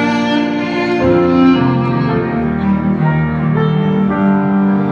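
Orchestral background music led by bowed strings, playing slow held chords that change about once a second.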